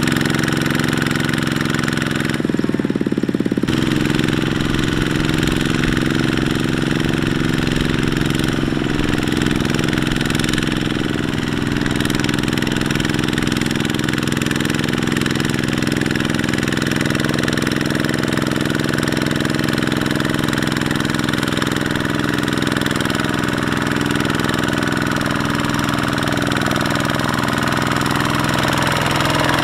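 Kubota two-wheel walking tractor's single-cylinder diesel engine running steadily with a knocking chug as it drags a loaded trailer through deep mud.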